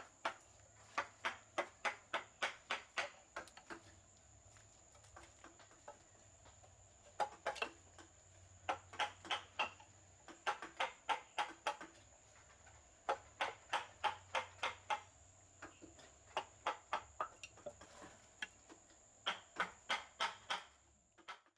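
Mallet striking a wood-carving chisel as it cuts into solid wood: runs of sharp knocks at about four blows a second, each run of several strokes followed by a short pause.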